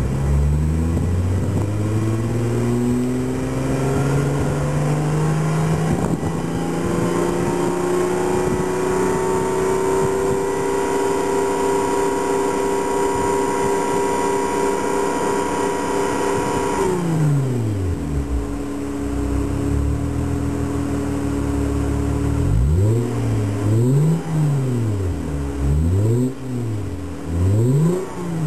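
Toyota Mark X (120 series) V6 exhaust heard at the tailpipes through an M'sRealize silent muffler during a close-proximity exhaust noise measurement. The engine climbs from idle over the first few seconds, is held at a steady high speed, and drops back to idle about seventeen seconds in. Near the end it is blipped several times in quick succession.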